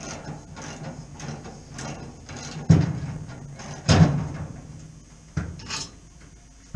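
Socket ratchet clicking as a large bolt is wound out, then two heavy clunks about a second apart and a couple of lighter knocks, as the freed part comes down onto its support block.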